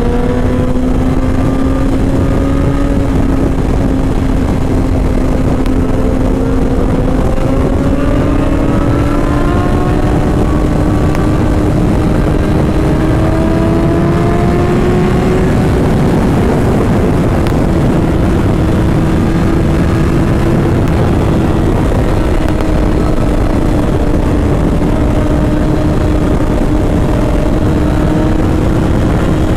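Suzuki sportbike engine pulling steadily at highway speed, its pitch climbing slowly as the bike accelerates, over heavy wind rush on the microphone.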